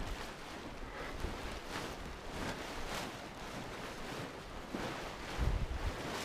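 Wind buffeting the microphone in low rumbling gusts, strongest about five and a half seconds in, over a steady rush, with soft rustles repeating every half second or so.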